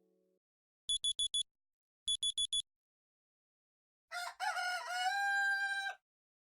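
Two Honor 8A phone tones played one after the other. First come two quick groups of four high electronic beeps, like a digital alarm clock. Then a recorded rooster crows once, for about two seconds.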